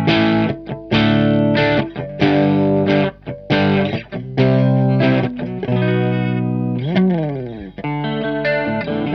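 Electric guitar (a Squier Starcaster) with overdrive, playing a riff of short, sharply struck chords, with a pitch slide about seven seconds in. It ends on a held, ringing chord, with a light chorus shimmer on the tone.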